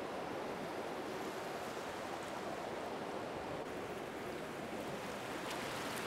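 Ocean surf: a steady, even rush of breaking waves.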